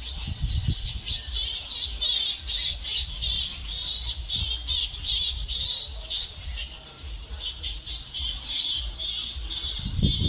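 A roosting colony of bats squeaking and chattering: a dense, fast, high-pitched chatter with a low rumble underneath.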